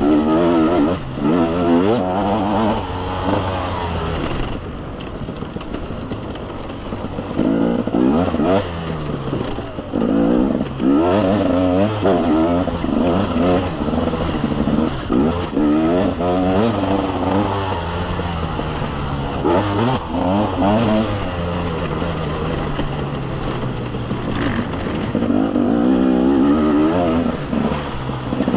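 KTM 250 EXC two-stroke enduro engine revving hard through the gears. Its pitch climbs in repeated rising sweeps and drops back as the throttle is eased, with a couple of steadier, lower stretches between the bursts.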